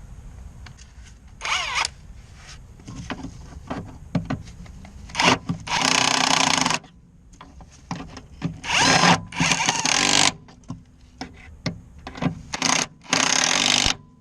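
Impact wrench running in about six short bursts, the longest about a second, running nuts and bolts back on while the shock mount is reinstalled. Between the bursts come short clicks and knocks of tools and parts being handled.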